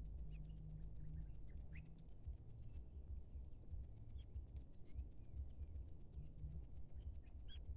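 Faint outdoor ambience: an insect trilling as a fast, even train of high ticks that pauses briefly, with a few short high chirps scattered through and a low rumble underneath.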